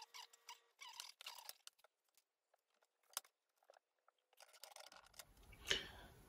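Faint, scattered light clicks and rustles of plastic conduit pipes being handled, with a single louder knock near the end.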